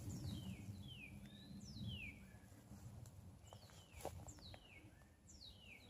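Faint songbird calls: a run of short, high whistles, each sliding down in pitch, repeated roughly every second or less, with a soft tap about four seconds in.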